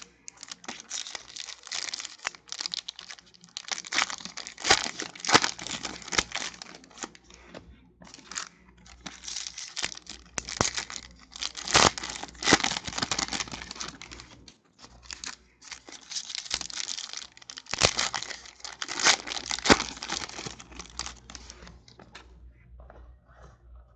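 Foil trading-card pack wrappers being torn open and crumpled by hand, in repeated crinkling bursts that die down near the end.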